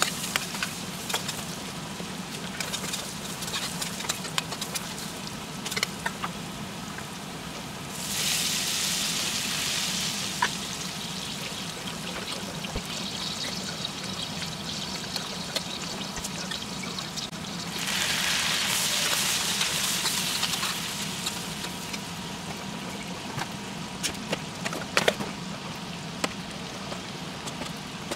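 Food frying in a stainless steel pan: a steady sizzle with scattered clicks of a metal spoon against the pan. Twice, about ten seconds apart, the sizzle swells into a louder hiss for two or three seconds.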